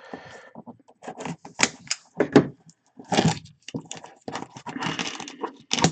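Plastic shrink-wrap being torn and crinkled off a sealed cardboard box, in irregular crackling bursts.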